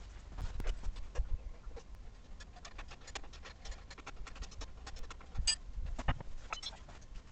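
Scattered clicks, taps and knocks of tools and metal motorcycle parts being handled during disassembly, over a low rumble. The louder knocks come about a second in and again around five to six seconds in.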